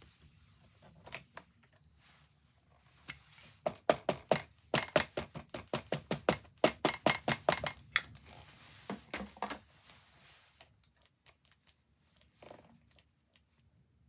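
A run of quick, light taps, about three or four a second for some six seconds, from a clear acrylic stamp being worked on the craft desk, with a few single taps before and after.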